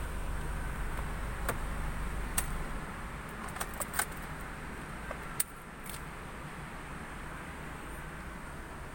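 A handful of small sharp clicks and clinks, spread over the first six seconds, over a steady low hum inside a car cabin.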